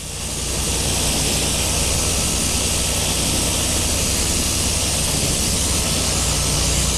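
Pressure washer blasting water onto concrete: a loud, steady hiss of the spray over the low, even drone of the machine's engine and pump.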